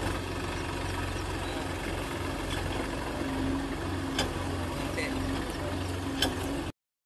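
Diesel engines of a JCB backhoe loader and a Sonalika DI-42 RX 4x4 tractor running steadily at low revs in deep mud, with two sharp metallic clicks a couple of seconds apart; the sound cuts off suddenly near the end.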